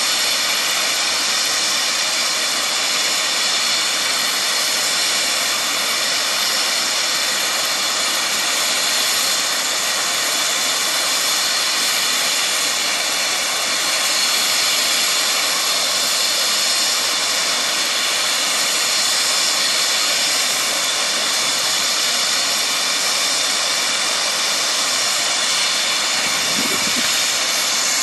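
Air ambulance helicopter's turbine running steadily on the helipad with the main rotor turning: a steady high-pitched turbine whine that holds at one level.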